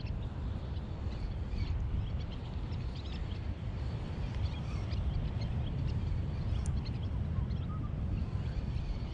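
Outdoor ambience: a steady low rumble with scattered short, high bird chirps over it.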